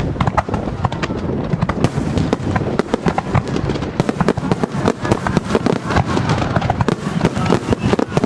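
Starmine fireworks: a dense rapid-fire barrage of shells launching and bursting, many bangs a second overlapping without a break.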